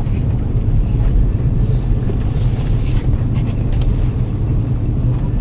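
Steady low rumble inside the cabin of an Airbus A330-300 on landing: engine and airflow noise heard from a rear window seat, with a few faint clicks or rattles about three seconds in.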